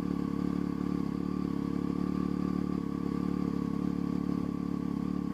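Motorcycle engine ticking over steadily through short aftermarket twin silencers, with no revs.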